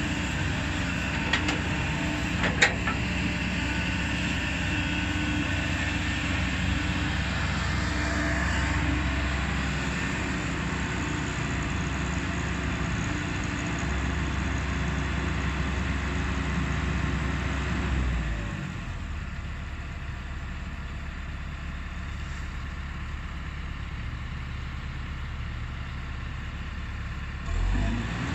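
Kobelco SK200 excavator's diesel engine running steadily at work, with two sharp knocks in the first few seconds. About two-thirds of the way in the engine sound drops to a lower, quieter note, and a brief louder rumble follows near the end.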